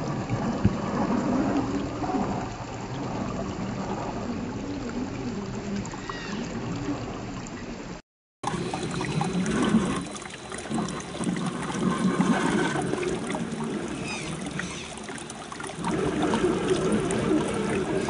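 Shallow stream running and trickling over rocks, with the whine of an RGT 86100 RC rock crawler's small electric motor rising and falling under throttle as it climbs through the water. The sound drops out briefly about eight seconds in.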